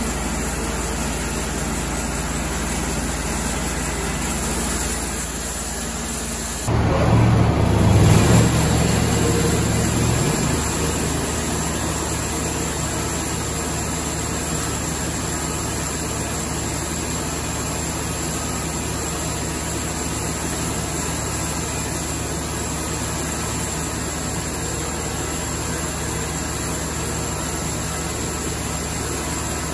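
The engine of a Cook's MP-32 portable band sawmill running steadily. About seven seconds in it turns suddenly louder with a heavier low rumble for a few seconds, then settles back to steady running.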